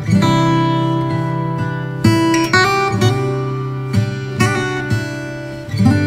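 Background music: strummed acoustic guitar, the chords changing every second or two.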